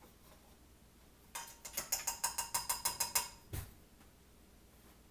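A rapid run of mechanical, ratchet-like clicks, about six a second for roughly two seconds, followed by a single dull thump.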